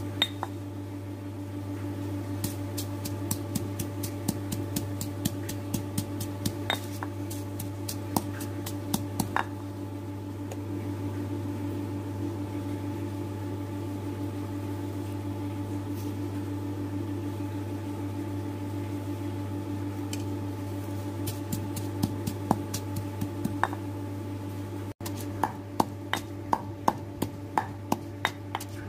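Stone mortar and pestle pounding sliced red chillies: runs of sharp stone-on-stone knocks, about three a second, with a lull in the middle. A steady low hum runs underneath.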